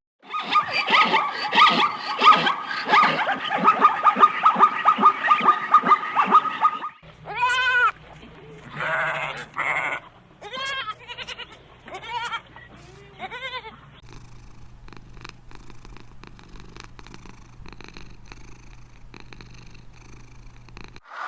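Animals calling: a dense run of rapid, repeated calls for the first seven seconds, then a string of separate short calls that rise and fall in pitch, then faint scattered clicks over a low hum.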